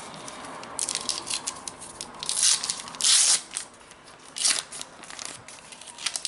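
A Panini Adrenalyn XL trading card packet being torn open, its wrapper crinkling: several short tearing rips, the loudest about three seconds in, with small crackles between.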